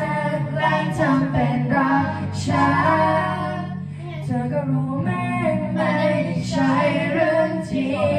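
Singing in Thai into karaoke microphones, amplified over the karaoke backing track.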